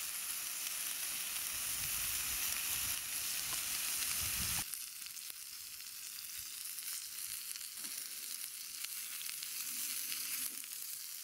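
Pork and leek skewers sizzling on a ribbed grill pan over a gas camp stove. The sizzle drops abruptly in level about halfway through and carries on thinner.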